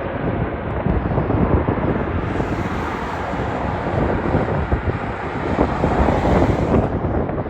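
Wind buffeting the microphone over the jet noise of an Airbus A320neo's Pratt & Whitney geared turbofans on its landing. A brighter hiss swells in about two seconds in and drops away near the end.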